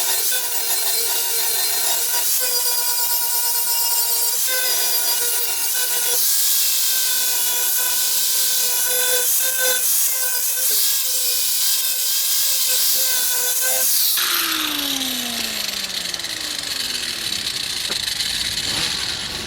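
Angle grinder with a flap disc sanding down a welded repair on a steel car fender lip: a steady whine over the grinding noise. About fourteen seconds in it is switched off and winds down with a falling whine.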